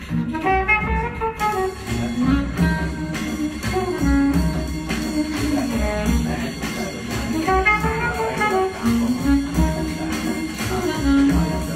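Jazz recording with a pitched lead melody over bass, played loud through Lowther PM6 full-range drivers in Hedlund horn loudspeakers, driven by a 1.6-watt tube amplifier.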